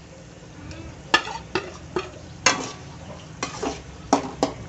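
Steel spatula stirring spices into a tomato masala in a steel kadai, scraping and knocking against the pan about eight times at an uneven pace over a low frying sizzle.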